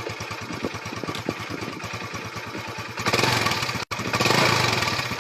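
Honda Biz's single-cylinder four-stroke engine idling with a steady putter through an exhaust fitted with a 90-degree pipe elbow, meant to make it louder. About three seconds in the engine is revved and gets markedly louder, with a split-second break just before four seconds.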